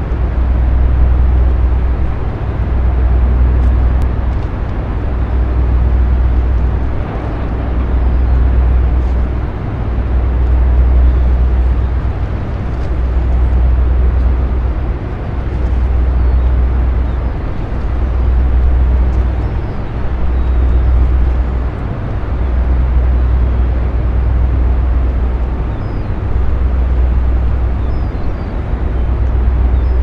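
A container ship's engine running. A loud, deep rumble swells and fades about every two to three seconds under a steady mechanical noise.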